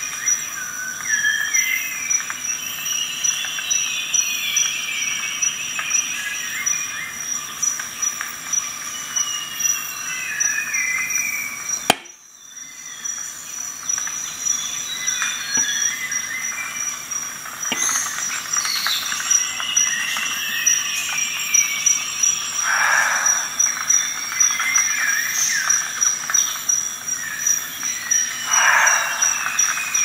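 Outdoor ambience: a steady, high-pitched insect trill with birds singing in falling phrases. A sharp click comes about twelve seconds in, followed by a brief dip in the sound.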